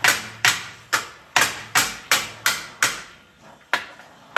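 Hammer striking a steel bar that is being heated by an oxy-acetylene cutting torch. Sharp blows come about two or three a second, each ringing briefly, with a short pause near the end.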